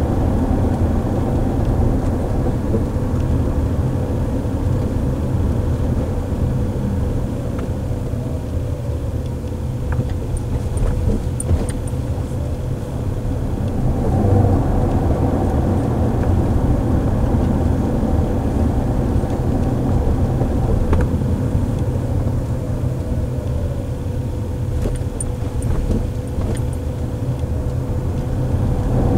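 Road and tyre noise inside a moving car's cabin: a steady low rumble with a faint, steady hum over it. A few faint high ticks come about a third of the way in and again near the end.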